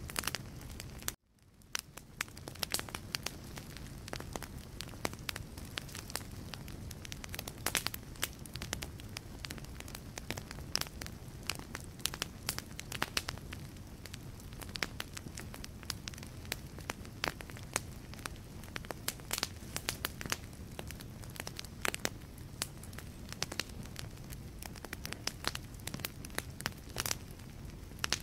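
Wood fire burning in a fireplace, crackling with many sharp pops and snaps over a steady low rush of flame. About a second in the sound drops out almost completely for a moment, then fades back in.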